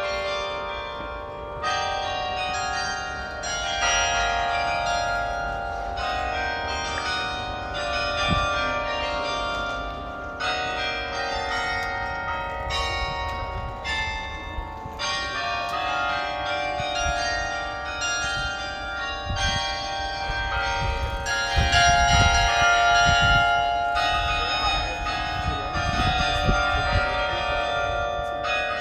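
Church tower carillon playing a melody: tuned bells struck one after another, each ringing on under the next.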